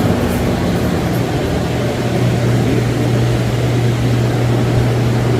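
A steady low mechanical hum with an even rushing noise over it, unbroken throughout.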